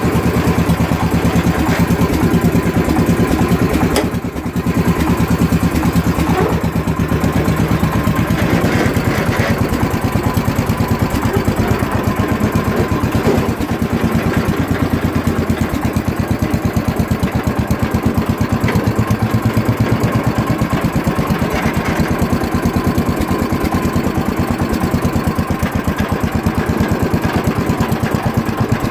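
Wheel Horse Raider 10 garden tractor's single-cylinder engine running steadily with an even firing beat while the tractor is driven, soon after a cold start. The engine sound dips briefly about four seconds in.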